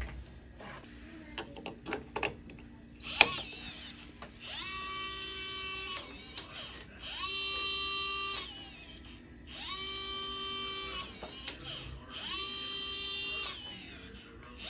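A small electric motor whirring in four short, evenly spaced runs, each spinning up and then holding a steady pitch for about a second and a half, after a few seconds of light handling clicks.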